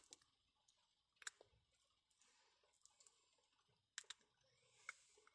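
Near silence, broken by a few faint clicks: one about a second in and a small cluster around four seconds in, as fingertips press a wet sheet face mask onto the skin around the mouth.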